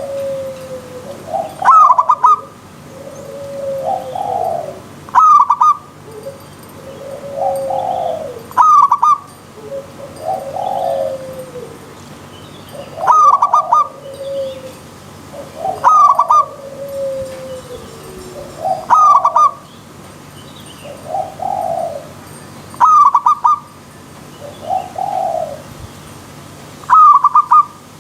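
Zebra dove (perkutut) song, repeated over and over. Soft cooing notes that fall in pitch alternate with a loud, short, clipped note about every three to four seconds.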